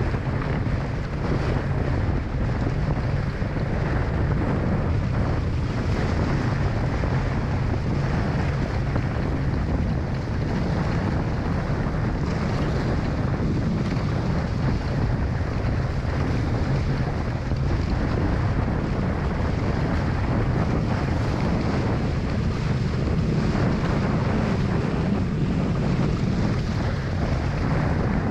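Hobie 16 catamaran sailing fast in strong wind: heavy wind buffeting on the microphone over a steady rush of water along the hulls.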